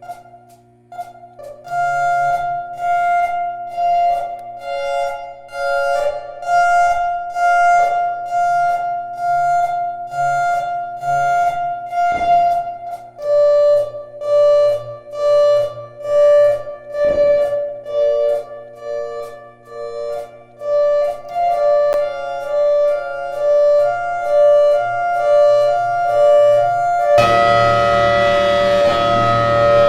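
Siren sounding a fire alarm code: tones switched on and off in quick groups with short pauses, the pitch stepping down about halfway. Near the end a louder steady siren tone takes over.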